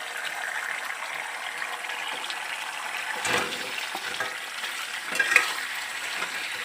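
Sauce sizzling in a frying pan as pieces of fried chicken are added and stirred through it, with a few scrapes and knocks of the spoon on the pan about three and five seconds in.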